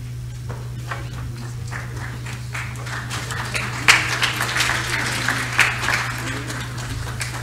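Audience applauding: scattered claps that build into full applause around the middle and then thin out, over a steady low hum.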